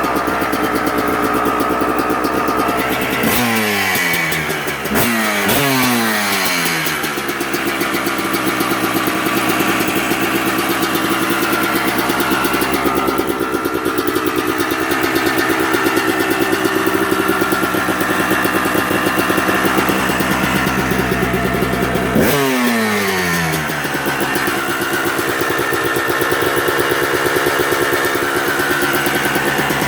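Suzuki RM250 two-stroke single-cylinder engine idling warm, blipped three times in quick succession a few seconds in and once more later on, the revs dropping back to idle after each blip.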